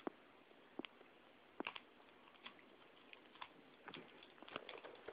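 Faint, irregular clicks and crinkles of tape being handled and pressed onto a homemade BB gun, a few sharp ticks every second or so.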